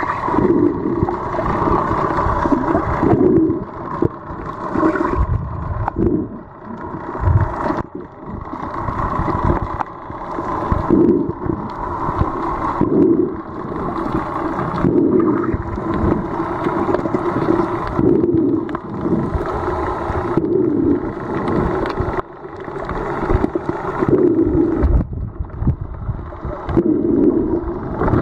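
Muffled underwater noise heard through a camera housing, a dull rush and gurgle that swells and fades every couple of seconds.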